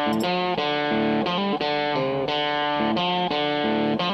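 Background music: a guitar playing a run of notes that change about every half second.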